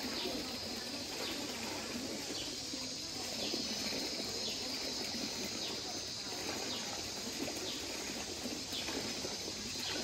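Outdoor ambience of running water under a steady high hiss, with a bird's short falling call repeating about once a second.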